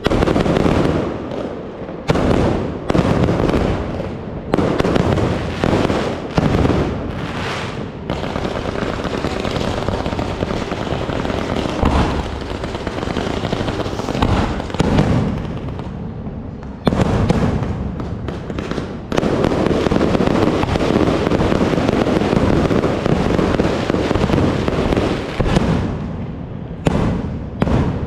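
Fireworks going off in quick succession, with sharp bangs every second or two and dense crackling between them. Past the middle they merge into a near-continuous barrage.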